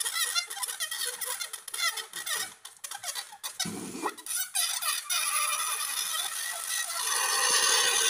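Air squealing out through the pinched, stretched neck of an inflated latex balloon, its pitch wavering as the fingers work the neck, mixed with squeaks and rubbing of the rubber. The squeal grows louder and steadier in the last second or so.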